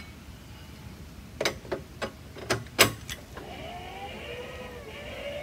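A few sharp clicks and knocks, then from about three seconds in a steady whir of gearing whose pitch wavers with the turning. This is a Power Torque electric trailer tongue jack being cranked by hand with no power connected, raising the trailer tongue.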